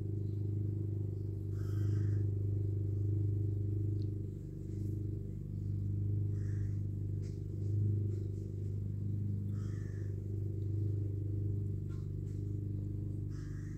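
Petrol lawn mowers running in the distance, a steady low drone.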